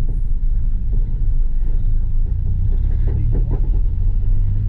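A VW Gol's carbureted 1.6 CHT four-cylinder engine, fitted with a 'mini turbinho' sports exhaust, drones steadily low while the car is driven on the road.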